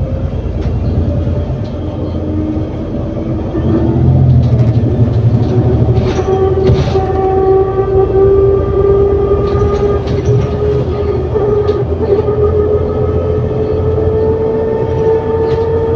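ADL Enviro400 City double-decker bus with a Voith automatic gearbox pulling away under load, heard on board. A steady low engine rumble runs under a clear whine that enters about four seconds in and slowly rises in pitch, with scattered interior rattles and clicks.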